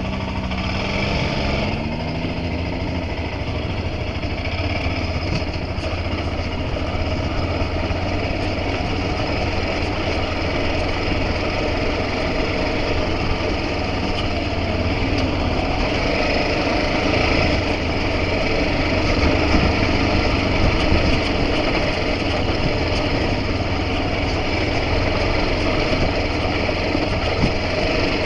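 A vehicle engine running steadily, its pitch rising slightly in the first couple of seconds.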